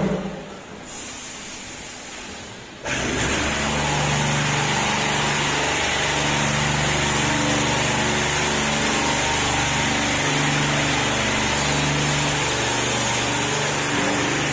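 A 5-gallon bottle washing machine and its high-pressure plunger pump switch on suddenly about three seconds in, after a click and a quieter stretch. The machine then runs steadily, with a loud hiss of water spray over a motor hum.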